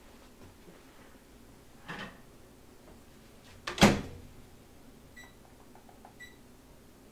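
Microwave oven being loaded and set: a soft knock about two seconds in, the door shutting with a loud clunk near four seconds, then three short keypad beeps about a second apart as the cooking time is entered.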